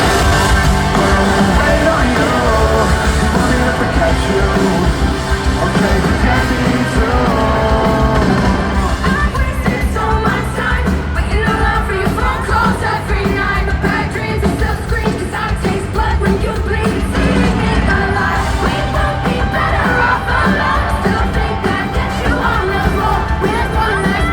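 Live rock band playing loudly, with a sung vocal and a crowd yelling and cheering along.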